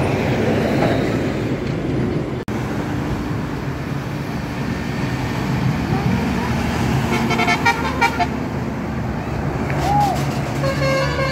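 Tour bus engines and road noise, then a bus 'telolet' multi-tone musical air horn plays a quick run of notes about seven seconds in. Another telolet horn tune starts near the end.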